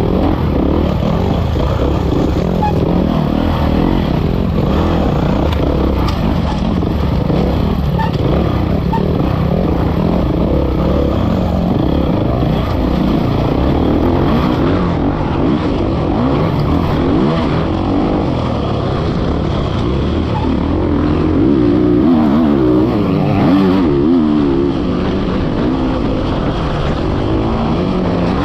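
Kawasaki KX450X's four-stroke single-cylinder engine under hard riding, revving up and down again and again as the throttle is worked, heard close up from the bike.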